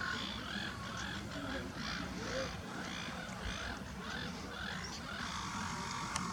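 A flock of gulls calling over one another, a steady chorus of short, repeated cries.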